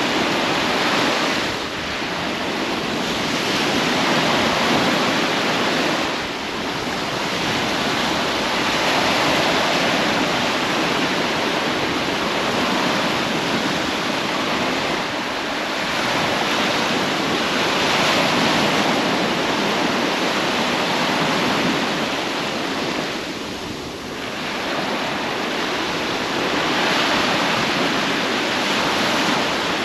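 Sea waves washing onto a beach: a continuous rush of surf that swells and eases in turn as each wave comes in.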